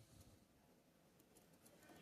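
Near silence: faint background hiss with a few very faint ticks.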